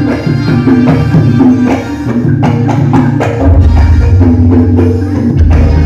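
A jaranan gamelan ensemble playing loud and amplified: hand-played kendang barrel drums lead with rapid strokes over gongs, metallophones and a keyboard. A deep low tone comes in about three and a half seconds in.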